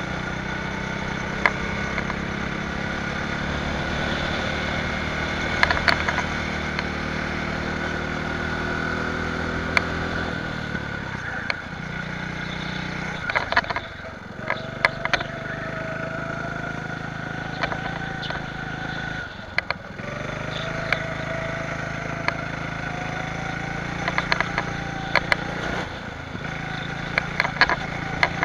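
Go-kart engine running hard, its note easing off twice (about halfway through and again a few seconds later) and picking back up, as when slowing for corners, with occasional sharp clicks over it.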